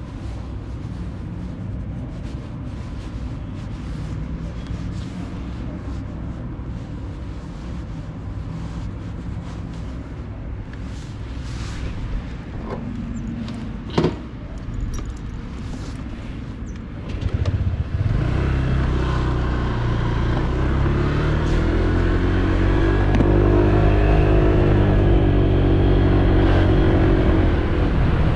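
Honda PCX 125 scooter's single-cylinder engine idling steadily, with one sharp click a little past halfway. Near the two-thirds mark it pulls away, and the engine note climbs as it accelerates, over louder road and wind noise.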